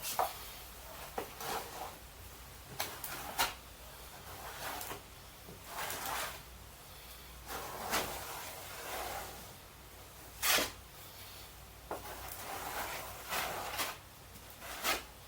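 Cabinet parts being handled and fitted: scattered, irregular knocks and clunks with light rustling between them. The loudest knocks come a little past halfway and near the end.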